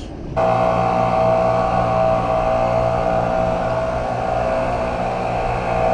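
Boat engine running at a steady speed, a constant hum of several held tones that comes in abruptly just after the start.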